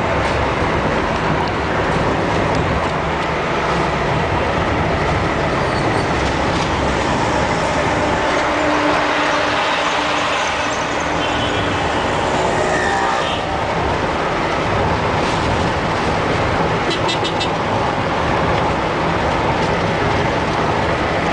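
Steady engine and road noise of a moving car, heard from inside the cabin.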